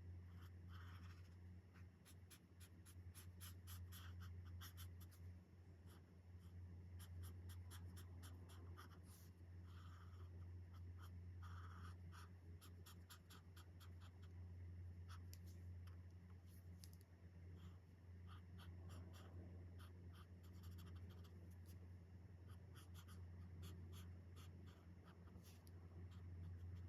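Chen Rui alcohol marker tips stroking on colouring-book paper: faint, quick, repeated scratchy strokes in runs, over a steady low hum.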